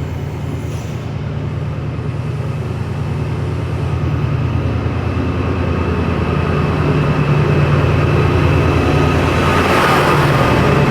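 Class 68 diesel-electric locomotive's engine running with a deep steady drone and a thin high whine above it, growing gradually louder.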